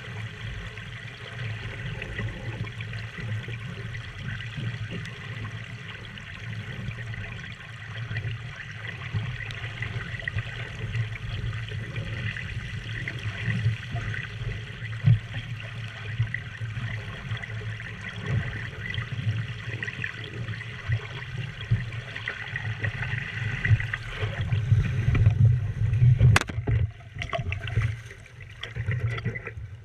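Water rushing and trickling along a Lightning sailing dinghy's hull under way, over a steady low rumble. Near the end the sound turns choppy and uneven, with one sharp knock.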